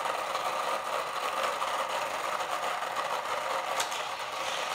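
Hot Wheels track booster's small electric motor spinning its drive wheels at 3 volts, the booster's normal voltage: a steady whir. A brief click about four seconds in.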